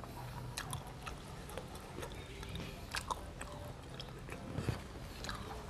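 A person eating close to the microphone: chewing and mouth sounds, with scattered small clicks and scrapes of a metal spoon and fork on a plastic plate as the last of the sauce is scooped up.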